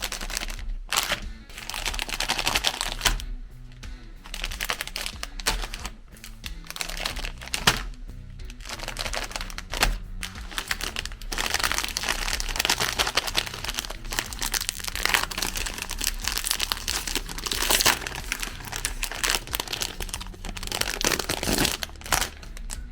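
Background music with dense, irregular crinkling and crackling over it.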